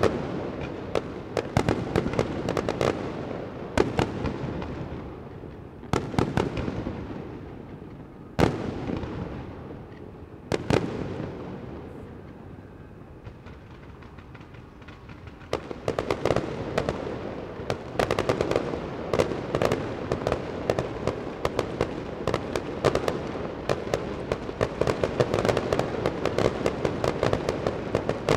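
Fireworks display: aerial shells bursting with single loud bangs about every two seconds, each trailing off. After a brief lull, from about 16 s in, a dense run of rapid bangs and crackling reports.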